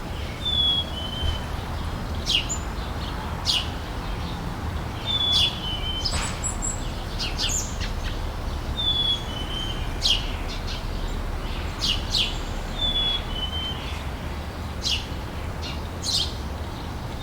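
Outdoor summer ambience of birds chirping. Short, sharp chirps come every second or two, and a short two-note falling whistle repeats about every four seconds, over a steady low background rumble.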